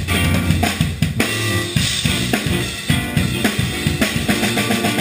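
A funk band playing live, led by a close drum kit with kick drum, snare and cymbal hits, over electric guitar.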